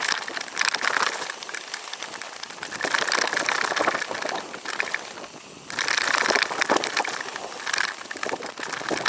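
A mountain bike riding fast down a dirt trail, heard from a handlebar-mounted camera: a steady rush of tyre and wind noise packed with crackles, knocks and rattles as the bike runs over bumps.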